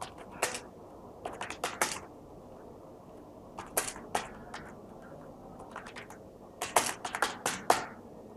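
Computer keyboard and mouse clicking in short clusters of clicks, with a denser run of clicks near the end.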